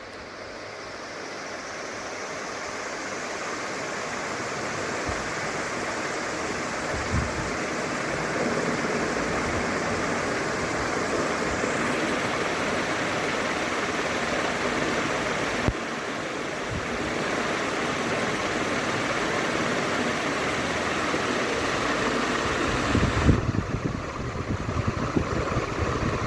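A 48-inch PBS ceiling fan running at high speed: a steady, loud rush of air that builds over the first several seconds as the fan speeds up, then holds. A few brief knocks come through it.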